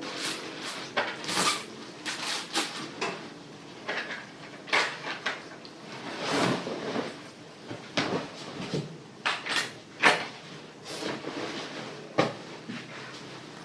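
Household tidying: objects being handled and put away, with an irregular run of short knocks, clacks and brief scrapes like cupboard doors and drawers being opened and shut. The loudest knock comes about ten seconds in.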